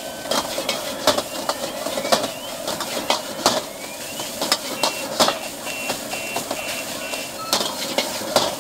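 A metal ladle scrapes and knocks against a wok as egg fried rice is stir-fried, over a steady hiss. A little before the middle, a run of short electronic beeps at one high pitch, about two a second, sounds for a few seconds.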